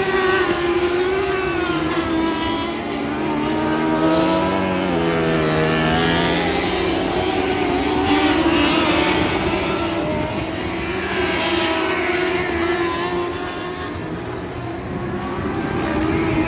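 A field of lightning sprint cars racing on a dirt oval, several engines at once, their pitch rising and falling as the cars sweep past and swelling every few seconds as bunches go by.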